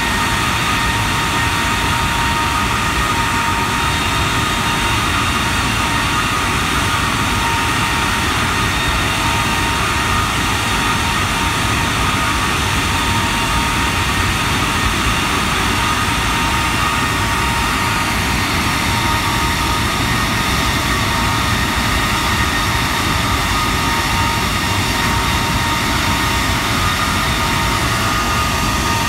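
Rolls-Royce Trent 895 turbofan on a Boeing 777 held at high power during a ground engine run: a steady, loud jet rush with several steady whining tones over it.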